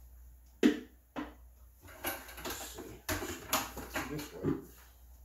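A white plastic bucket being handled while a ceramic water filter is test-fitted into a hole drilled in it: a sharp hollow knock about half a second in, a lighter one just after, then a run of plastic scraping and knocking as the filter is pushed against the hole.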